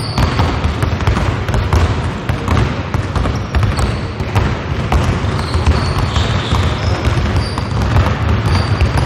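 Several basketballs being dribbled and passed on a hardwood gym floor, many overlapping bounces with no steady rhythm, ringing in a large hall.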